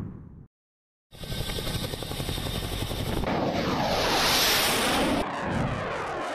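A fighter jet's engines as it flies low past, building to its loudest about four seconds in, with a sweeping, shifting tone as it goes by. It starts after a brief silence and cuts to a steadier, quieter jet noise about five seconds in.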